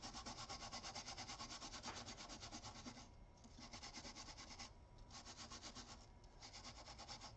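Small brush scrubbing a phone logic board with alcohol, cleaning off flux residue and debris after chip replacement. The quick back-and-forth strokes come about eight a second, faint, with three short pauses in the second half.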